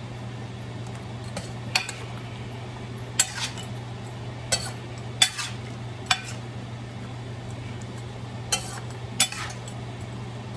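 Metal spoon stirring prawns in sauce in a stainless steel pan, clinking against the pan's side about eight times at uneven intervals, over a steady low hum.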